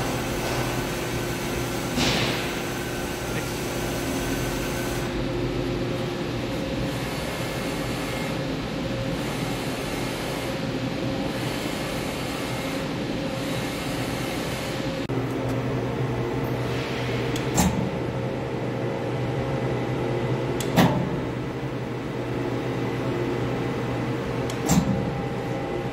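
Steady hum of a powered-up CNC turning center, with several steady tones in it that shift slightly about halfway through. A few sharp clicks sound over it, one near the start and three in the second half.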